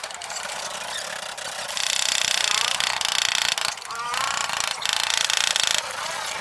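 Handheld power tool on car bodywork running in two bursts, one starting about two seconds in and another near five seconds, with a lower-level run between them.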